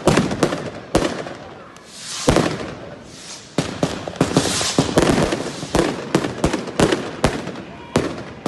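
Fireworks finale: a rapid, irregular string of loud bangs from bursting shells and rockets, several a second at times, with crackling hiss between the reports.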